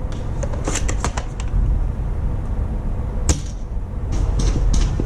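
Airsoft gunfire: a quick cluster of sharp snaps about a second in, a single loud snap past the three-second mark, and a few more after four seconds, over a steady low rumble.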